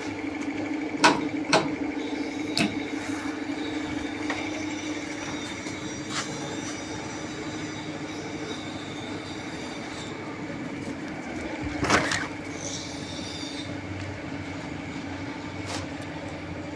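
CNC router running with a steady hum and a thin high whine. Several sharp clicks or knocks cut through it, the loudest about a second in and near twelve seconds.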